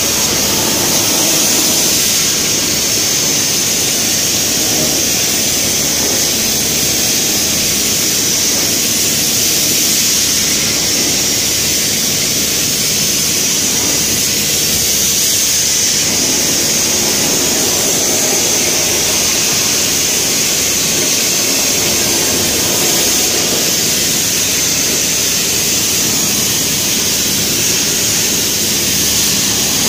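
Sandblasting nozzle firing abrasive grit at a sheet of glass on compressed air: a loud, steady hiss.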